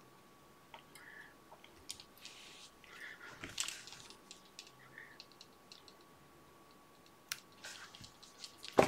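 Faint, scattered clicks and short rustles of hands working thread and a bobbin at a fly-tying vise, with a sharper click near the end. A faint steady high tone sits underneath.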